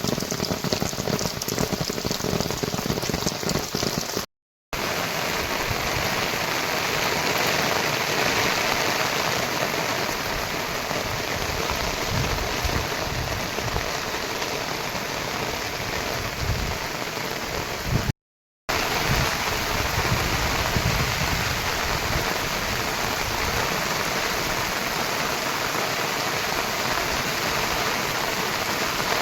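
Heavy monsoon rain falling steadily, a dense even hiss of raindrops. It cuts out for a split second twice, about four and eighteen seconds in.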